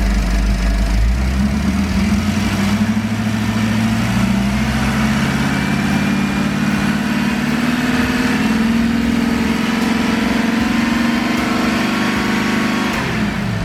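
Ford F100 truck engine on Holley Sniper fuel injection running after an injector replacement: revved up slowly from idle, held at higher revs for several seconds, then dropping quickly back to idle near the end.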